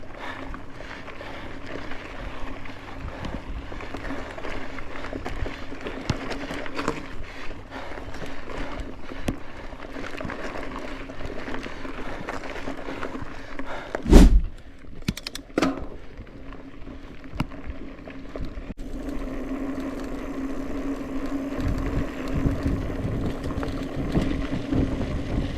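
Mountain bike riding over a rough trail: tyre noise and steady rattling from the bike, with one loud knock about halfway through.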